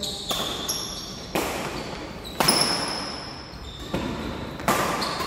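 Badminton rally: sharp racket-on-shuttlecock hits, five in about five seconds, each trailing off, with short high-pitched squeaks between them.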